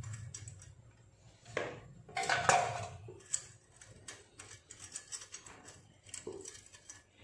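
Metal exhaust parts clinking and scraping as the motorcycle's muffler joint on the link pipe is handled, with a louder clattering scrape about two to three seconds in.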